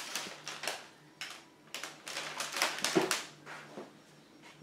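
Handling noise from a handheld camera being moved: a string of short, soft rustling and scuffing sounds over a faint steady hum.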